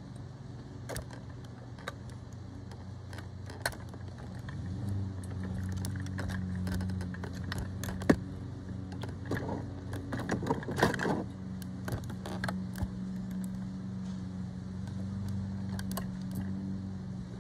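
Clicks and rattles from a First Gear toy front-load garbage truck as its lift arms and front bin are worked by hand, with a sharp click about eight seconds in and a burst of rattling a couple of seconds later. A steady low hum runs underneath.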